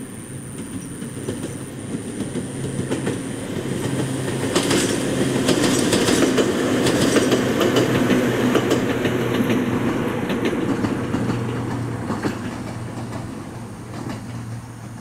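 Ohmi Railway electric train 805F passing along the line, its wheels clacking over the rail joints. The running sound builds to its loudest about halfway through, then fades.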